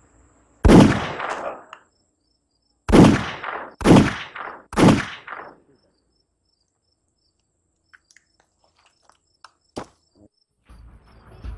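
Four pistol shots, as a film sound effect: one about a second in, then three more about a second apart starting near three seconds, each trailing off in a short echo.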